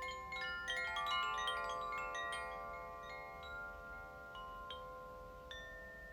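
Koshi chimes in the water (Aqua) and earth (Terra) tunings ringing: a cluster of bright chiming strikes in the first couple of seconds, then only a few scattered strikes as the overlapping tones ring on and slowly fade.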